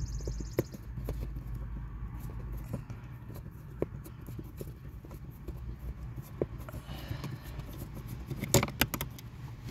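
Screwdriver backing a small screw out of the heater core pipe fitting: faint scraping and ticking of the blade in the screw head, with a quick run of sharper clicks near the end.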